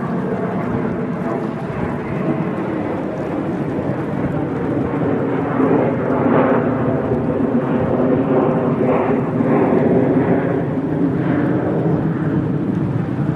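Diesel-electric freight locomotive approaching on the main line, its engine a steady low rumble that slowly grows louder.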